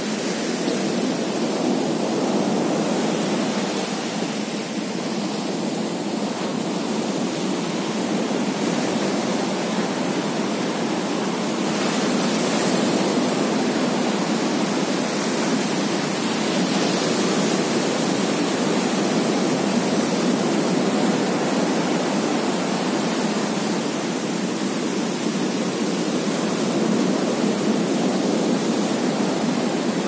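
Ocean surf breaking and washing in on a beach: a continuous rush of water that swells slightly about twelve seconds in.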